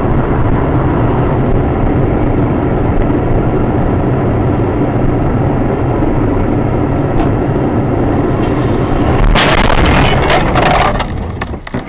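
Car engine and road noise from a dashcam, loud and steady, then a sudden loud crash with crunching and debris about nine seconds in: a road collision.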